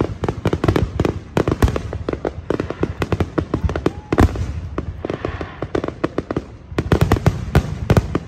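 Aerial fireworks shells bursting in rapid succession: many overlapping bangs and crackles, with a thicker flurry of reports near the end.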